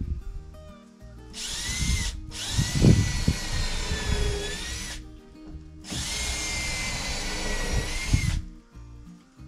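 Cordless drill driving screws at an angle to toenail a wooden roof rafter to the wall's top plate. The motor whines in three runs: a brief one about a second and a half in, then two long runs of two to three seconds each, its pitch dipping slightly as the screws bite.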